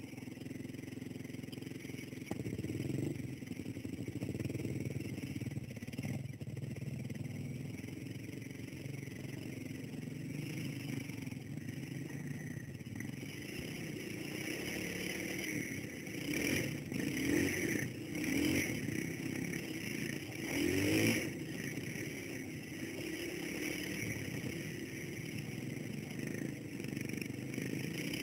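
Dirt bike engine running and revving as the bike rides off-road. Louder surges of revving come in the second half while the bike fords a muddy stream, with water splashing.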